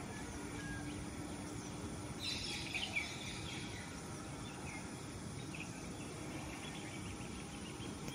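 Outdoor ambience: a steady hiss of background noise with a short flurry of high small-bird chirps about two to three seconds in.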